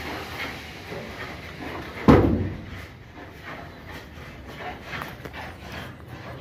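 A hinged cabinet door under a wooden counter banged shut once, loudly, about two seconds in. Faint knocks and scuffs follow.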